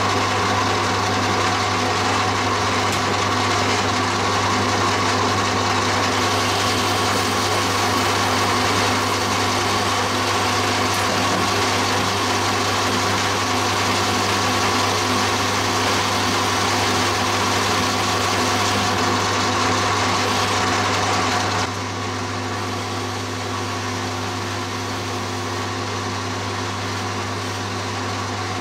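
Metal lathe running steadily with a high-speed steel boring bar cutting a bore into a cast aluminium workpiece on the faceplate, a steady motor hum under the cutting noise. About three quarters through, the sound drops a little and the lathe runs on more quietly.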